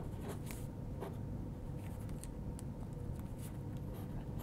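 Pen writing on a paper sticky note: a series of short, faint, irregular strokes.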